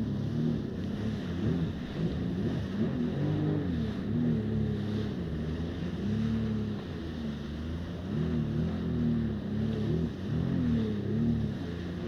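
Yamaha jet ski engine running at speed, its pitch rising and falling every second or so, over rushing water and wind on the microphone.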